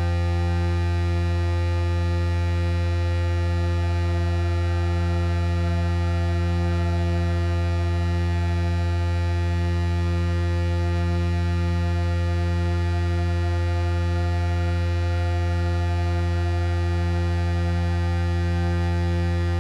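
Electronic music: a sustained low synthesizer drone on one steady pitch, rich in overtones, with a slow gentle pulsing in its lower tones and no beat.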